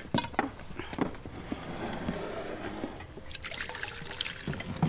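Frying bacon and eggs sizzling and crackling in a pan, with many small pops and a hiss that thickens about three seconds in.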